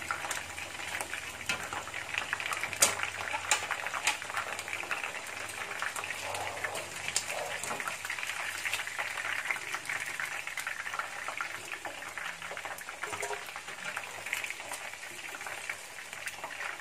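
Chicken wings sizzling and crackling in hot oil in a frying pan as they are lifted out. A few sharp clicks of a metal turner on the pan, the loudest about three seconds in.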